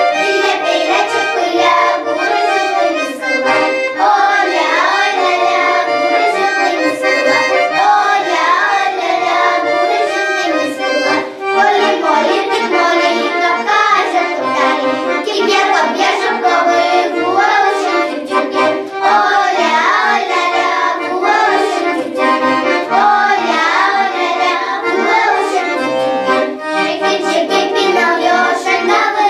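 A group of children singing a traditional folk song together, accompanied by an accordion.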